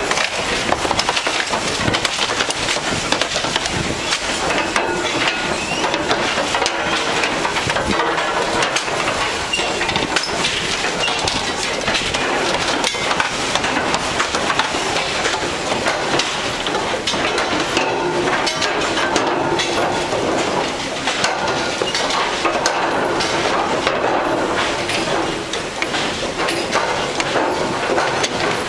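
Car tyres rolling over loose wooden planks laid across the rails of an old railway bridge, the boards clattering and knocking without a break.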